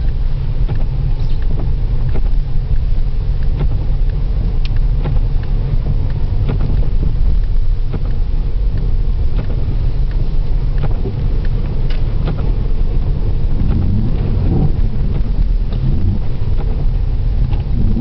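Inside the cabin of a 1993 Opel Vectra 2.5 V6 driving on a snow-covered road: a steady low rumble of engine and tyres, with scattered small clicks.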